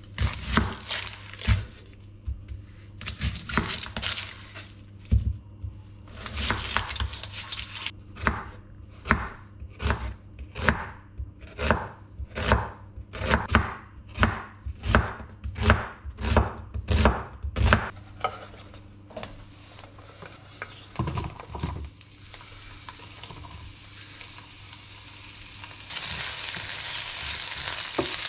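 Chef's knife cutting through an onion onto a wooden cutting board: a few uneven strokes, then a steady run of chops about two a second. Near the end, sliced onions sizzle steadily in a hot frying pan.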